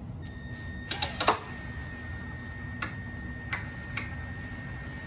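Cordless drill running slowly with a thin steady whine that starts just after the start, as it twists stainless steel filler wire clamped in a vise. A quick cluster of sharp ticks comes about a second in, then three single ticks spread over the next few seconds.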